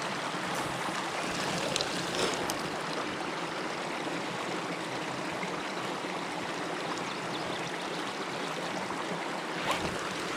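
Water running steadily over a beaver dam, an even stream-like flow, with a few faint clicks.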